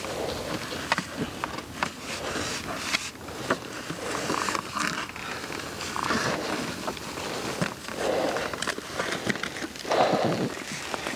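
Boots and trekking poles crunching and scraping on loose volcanic scree and rock during a steep climb, with heavy breaths every couple of seconds.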